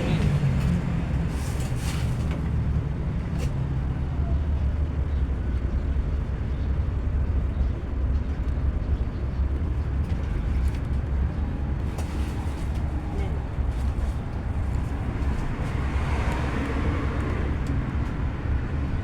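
Isuzu MU-X turbodiesel engine running steadily at an even, low speed, with a few light clicks on top.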